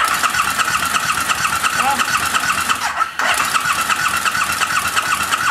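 Electric starter cranking the KTM LC8 V-twin without it firing, in two runs with a short break about three seconds in. The engine is being turned over to build oil pressure, and no pressure shows.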